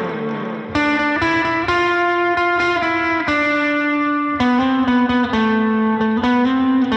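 Instrumental background music: a melody of held notes over a steady low note, moving about twice a second.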